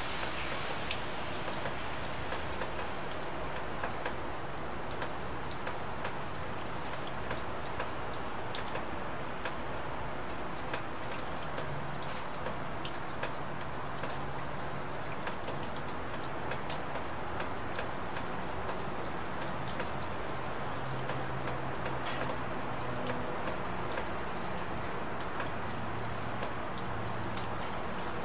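Steady rain falling, with many individual drops ticking sharply and irregularly on nearby surfaces.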